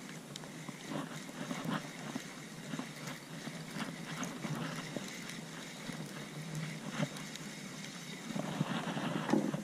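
Spinning reel being cranked on a lure retrieve, with small irregular clicks and handling knocks from the reel and rod, louder near the end.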